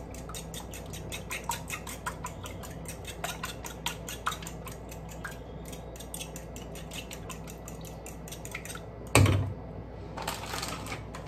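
A fork beating raw eggs in a ceramic bowl: fast, even clicks of metal tines against the bowl, several a second. About nine seconds in the beating stops and the bowl is set down with one loud knock, followed by a short rustle.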